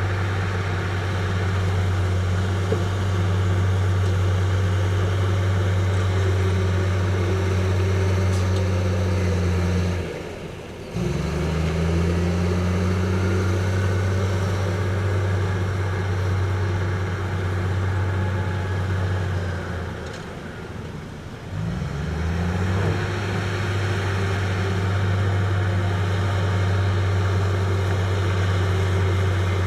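Heavy diesel engine of earthmoving machinery running steadily under load. It drops away briefly twice, about ten and twenty seconds in, each time picking back up with a short rise in pitch.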